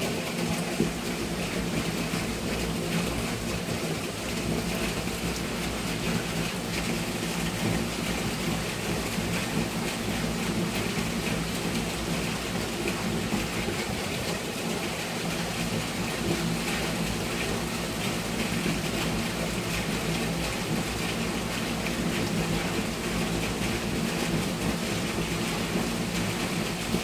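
Steady rain falling during a thunderstorm, an even rushing hiss with no change in level.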